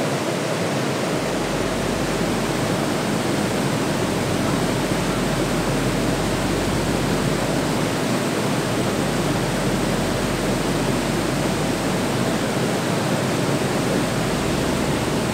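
Whitewater of the Linville River at Linville Falls rushing through a narrow rock chute, a steady, loud rush of falling water.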